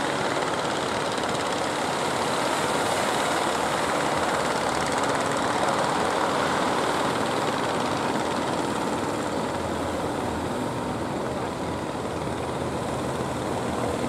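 Fishing boat engine running steadily, mixed with the wash of waves breaking in the channel.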